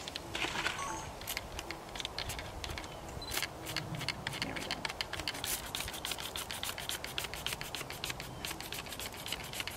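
Hand trigger spray bottle squirting sugar water onto a package of bees: a run of short sprays, a few at first, then coming quickly one after another in the second half.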